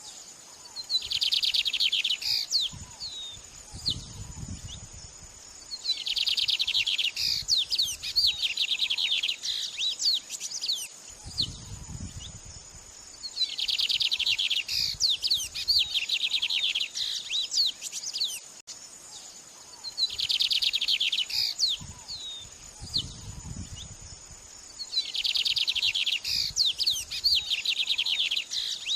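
A songbird singing loud repeated phrases of rapid trills and sharp whistles, a new phrase about every six seconds, over a steady high-pitched tone. A few brief low rumbles come between phrases.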